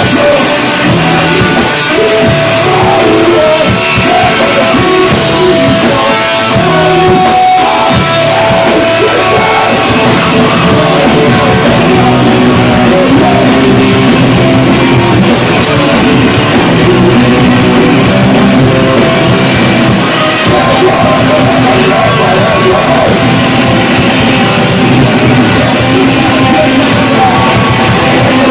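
A rock band playing loud: electric guitar, bass and drums, with a vocalist singing and yelling over them.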